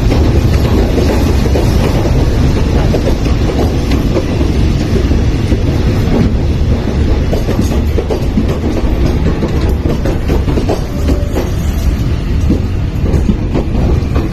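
Passenger carriages of a departing train rolling past at close range: a steady heavy rumble with the clatter of steel wheels over rail joints, the last carriage passing near the end.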